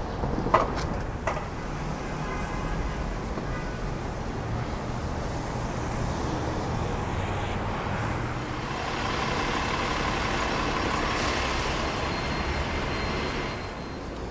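City street traffic: a steady rumble of road vehicles, with two sharp clicks near the start. A louder vehicle passes in the second half and fades away near the end.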